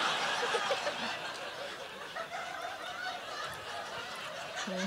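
Theater audience laughing and chuckling, the laughter dying down after the first second or so into scattered snickers.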